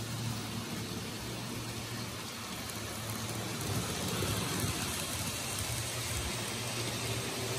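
N gauge model trains running on the track: a steady hissing rattle of small wheels on the rails with a low motor hum, getting louder about halfway through as a train passes close by.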